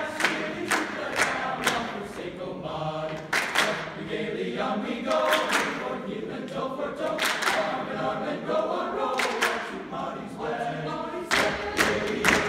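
Men's choir singing in parts while the singers clap in rhythm, about two claps a second; the claps thin out in the middle and come thick again near the end.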